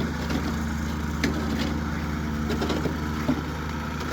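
Heavy earthmoving machine's engine running steadily, with a few short clanks.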